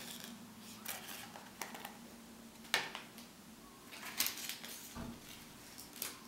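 Faint handling of small foam squishy keychains: scattered light clicks from their metal ball chains and soft rustles as they are picked up and squeezed, with a soft low thump about five seconds in.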